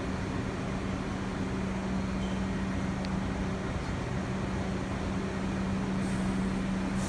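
Subway train standing at the platform, its equipment giving a steady hum with one low tone throughout. A brief hiss of air comes near the end.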